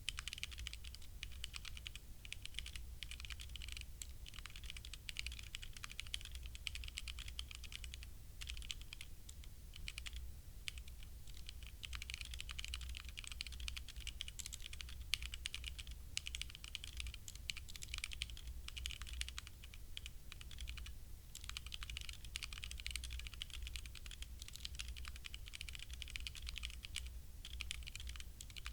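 Rapid, continuous typing on a HyperX Alloy Origins Core mechanical keyboard with HyperX Red linear switches, a fast run of keystroke clicks broken by a few short pauses, over a steady low hum.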